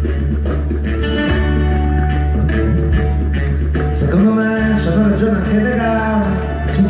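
Live band and orchestra playing an instrumental passage with a strong, steady bass. About four seconds in, a wavering sustained melody line comes in over it.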